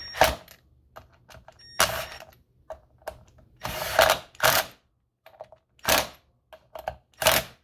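A cordless drill-driver running in several short bursts, driving the screws that hold the band saw's gear-housing cover.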